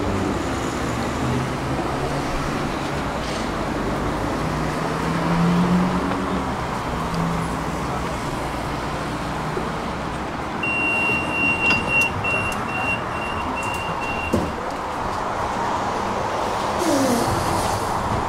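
Steady street and traffic noise around a tram at a stop. About eleven seconds in, the tram's door-warning beeper sounds a high steady tone, then a run of short beeps, roughly two a second, for about three seconds.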